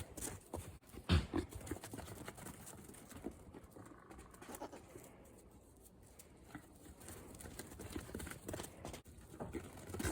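Dairy goats at close quarters: scattered short knocks and rustles, the loudest about a second in.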